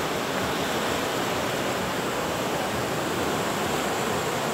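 Sea surf washing up a sandy beach: a steady rush of waves and foam.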